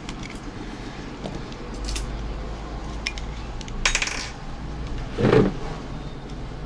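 Small hard plastic clicks and clatter as an old BlackBerry phone is taken apart by hand: the battery lifted out and set down and the SIM card slid out, with a short scrape near the middle and a louder thud about five seconds in.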